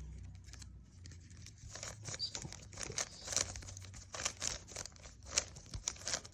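Plastic 3x3 Rubik's cube being handled and its layers turned: a run of irregular plastic clicks and rattles starting about a second and a half in.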